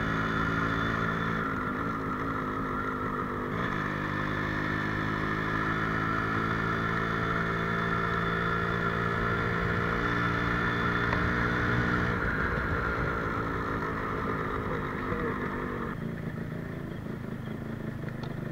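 Yamaha RXZ's two-stroke single-cylinder engine running while the bike is ridden. The pitch dips and recovers about two to four seconds in, climbs gently through the middle, then drops again around twelve seconds and eases off near the end, as with throttle and gear changes.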